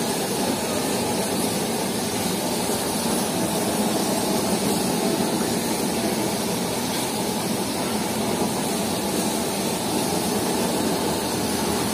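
Steady roar of a restaurant range's gas burners firing under cooking pans.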